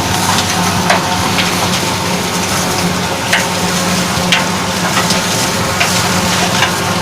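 Tractor-driven silage harvester running, a steady hum under a dense crackling rush, with irregular sharp clicks every second or so.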